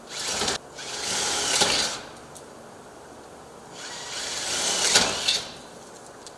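Power drill with a 5/16-inch bit boring holes through a storm door for the handle and deadbolt: three runs of drilling, the second and third growing louder before they stop.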